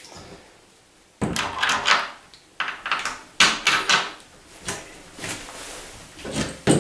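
Handling noises from door handle and latch hardware being worked on: a series of separate clunks and scrapes, starting about a second in, the loudest near the end.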